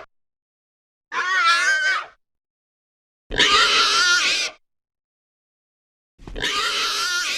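Gamorrean Guard creature vocal sound effects: three separate calls, each about a second long, with a wavering pitch, cut apart by silence.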